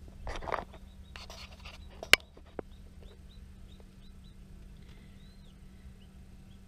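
Newly hatched chicks peeping faintly in an incubator, short high falling peeps a few times a second, over a steady low hum. This follows rustling handling noise in the first two seconds and a sharp click about two seconds in.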